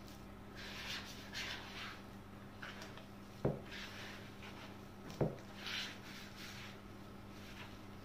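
Hands kneading soft kömbe cookie dough in a plastic bowl: soft, irregular squishing and rubbing strokes, with two short sharp knocks about three and a half and five seconds in. A faint steady low hum runs underneath.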